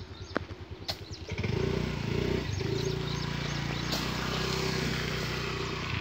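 A vehicle's engine running steadily, coming in about a second and a half in and holding at an even level. A few sharp knocks of a blade striking the date palm trunk sound over it.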